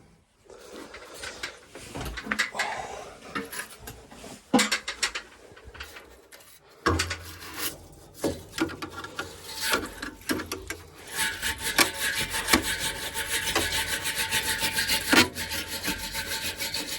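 Metal scraping and rubbing as debris is cleaned out of a gas boiler's heat exchanger baffles. It begins as scattered scrapes and knocks. About seven seconds in a steady low hum joins, and in the last few seconds the scraping becomes fast and continuous.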